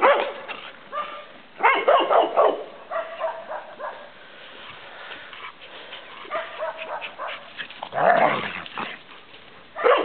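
Dogs barking in play, in loud bursts about two seconds in and again about eight seconds in, with fainter yips and whines between.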